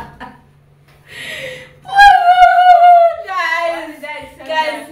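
A woman's voice, wordless: a short hiss about a second in, then a loud, high, drawn-out cry held for about a second that slides down in pitch, followed by shorter voiced sounds.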